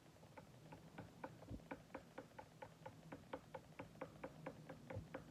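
A stir stick clinking against the inside of a small glass jar while stirring powdered food colouring into water-based clear gloss finish, a quick even run of about four to five light clinks a second, starting just under half a second in.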